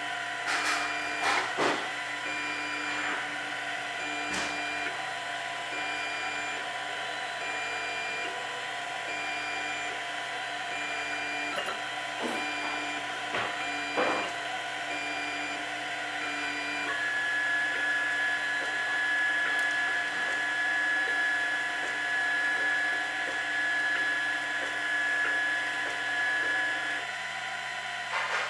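Printrbot Play 3D printer running a print: its stepper motors whine in tones that switch on and off about every second as the head moves, under a steady fan hum, with a few sharp clicks in the first half. A little past halfway a single high whine holds steady for about ten seconds.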